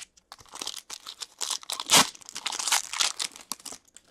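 Foil wrapper of a hockey card pack being torn open and crinkled by hand: a run of crinkling rustles, loudest about two seconds in, that dies away near the end.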